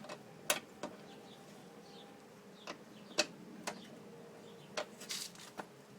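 Irregular sharp metallic clicks and clinks, about eight in all, of a wrench tightening the bolts of a car door's power-window regulator.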